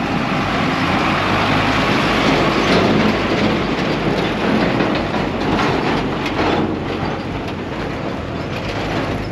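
Heavy tandem-axle dump truck driving past close by on a rough dirt road: the diesel engine and tyres rumble and the empty steel tipper body rattles and clanks over the ruts. Loudest in the first few seconds, easing a little as it moves away.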